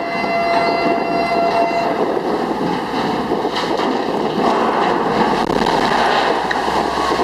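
A horn sounds a long blast for about the first two seconds over a loud, continuous rushing noise as a ship's hull slides sideways off the launch ways. The rush carries on to a splash of spray as the hull hits the water.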